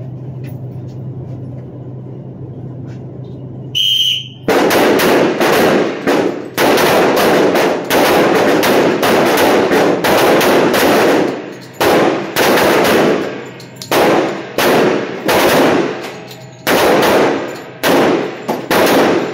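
A short whistle blast about four seconds in, then many handguns firing along the line in an indoor range: loud shots overlapping in rapid, uneven succession, thinning into separate bursts with short lulls in the last seconds.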